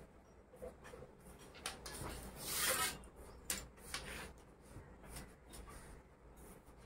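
Quiet handling sounds of a steel ruler and hands sliding and rubbing over fabric on a table, with a longer scrape about two and a half seconds in and a light tap about a second later.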